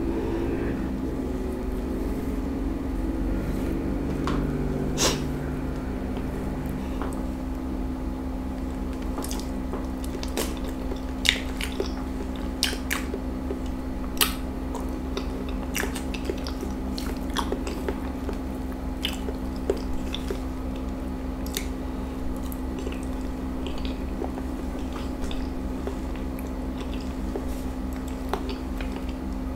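Close-up eating sounds of a ripe banana being peeled and chewed, with wet mouth clicks and smacks scattered throughout. Under them runs the steady hum of an air conditioner, which is a bit loud.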